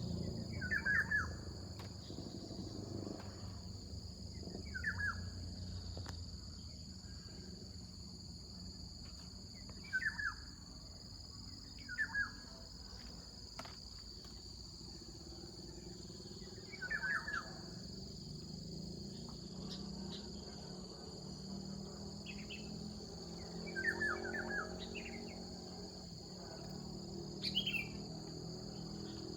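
A bird giving short, quick chirping call notes, repeated every few seconds, over a steady high drone of insects.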